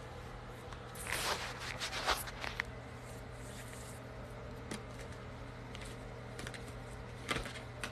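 Rustling and scraping from a handheld phone being moved against bedding and a furry blanket, loudest for a second or two about a second in, with a few sharp clicks later, over a steady low hum.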